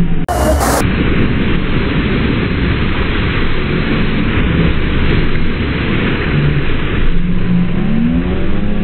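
Loud, steady roar of the pumped water of an artificial standing surf wave, with a low hum that rises and holds near the end.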